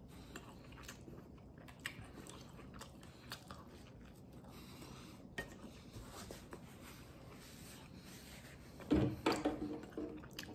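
A man chewing a mouthful of pizza crust close to the microphone: faint wet mouth clicks throughout, with a louder stretch of mouth noise about nine seconds in.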